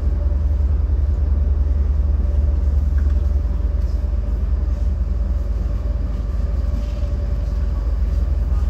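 A DB Class 430 S-Bahn electric multiple unit running between stations, heard from inside the car. It gives a steady, heavy low rumble with a faint steady whine above it.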